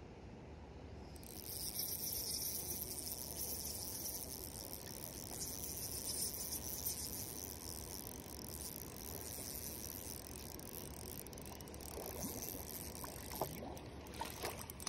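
A steady high hiss begins about a second in and runs on. Near the end a hooked trout splashes and thrashes at the water's surface.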